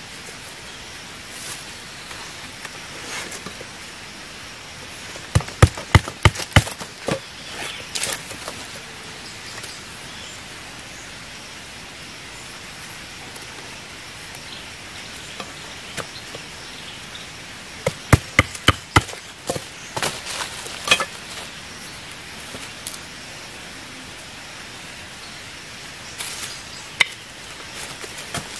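Machete strokes on wooden sticks: two quick runs of about five sharp knocks each, a few seconds in and again past the middle, with a few lighter knocks after, over a steady hiss of forest background.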